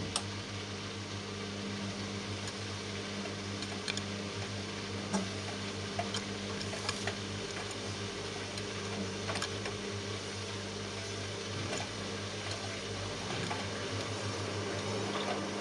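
Front-loading washing machine tumbling a wet plush toy in its drum during a quick wash: a steady motor hum with scattered clicks and knocks.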